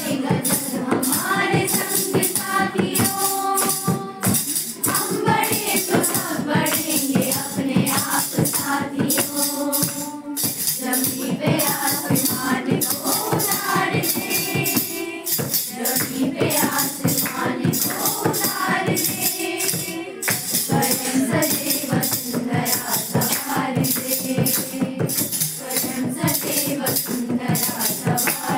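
A group of voices singing a song together, with hand clapping keeping a steady beat.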